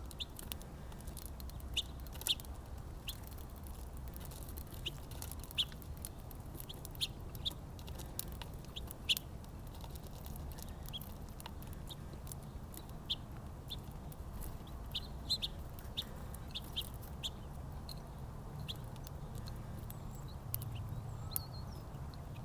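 Small birds at a backyard feeder: many short, sharp high chips and ticks at irregular intervals, over a low steady rumble.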